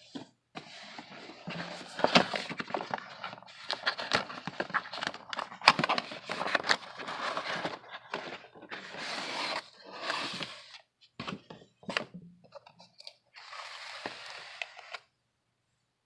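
Product packaging being opened and handled by hand: scraping and crackling with many sharp clicks, in stretches broken by short pauses.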